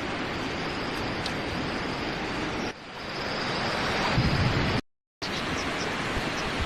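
Steady rushing noise with a thin, steady high hum above it. It dips briefly near the middle and cuts to silence for a moment about five seconds in.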